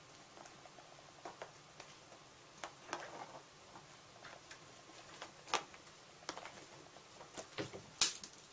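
A scattering of light taps and knocks in a quiet room, irregular and spread out, with the loudest sharp knock near the end.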